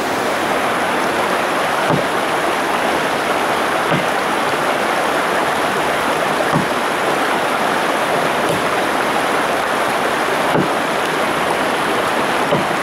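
Rushing mountain stream, with an axe chopping into a fallen log about every two seconds.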